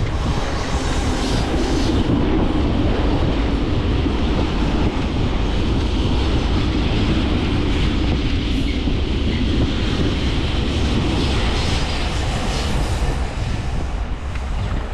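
Steady, loud rumble of wind buffeting the microphone and road noise from a moving e-bike.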